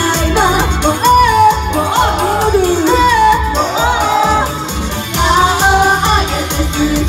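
Live J-pop idol performance: female vocalists singing over loud pop backing music with a steady, heavy bass beat.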